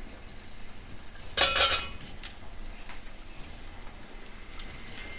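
Gujiyas deep-frying in hot refined oil in a steel kadhai, a steady sizzle. About one and a half seconds in there is a brief clatter of steel utensils.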